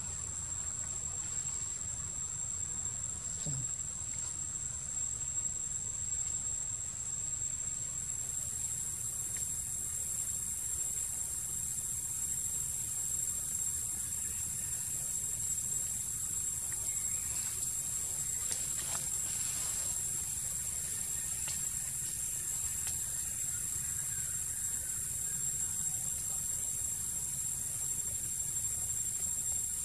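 Insect chorus: a steady high-pitched drone, joined about eight seconds in by a higher, louder hiss that carries on to the end.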